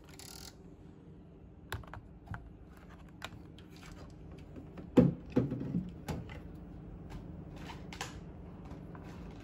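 Scattered sharp clicks and light knocks of equipment being handled, with a louder cluster of knocks about five seconds in, over a faint steady hum.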